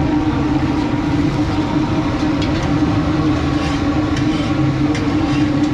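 A steady mechanical drone holding one low pitch over a dense noisy hiss, with a few faint clicks.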